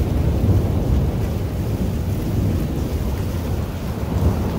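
A deep, steady rumble like distant thunder, sitting mostly in the bass, with wind noise on the microphone.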